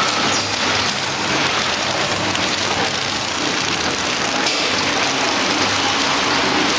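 Horizontal flow-pack wrapping machine running: a steady, dense mechanical noise with a faint low hum beneath it.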